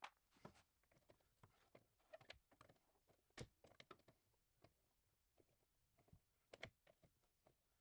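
Near silence with faint, irregular small clicks and taps, the two clearest about three and a half and six and a half seconds in.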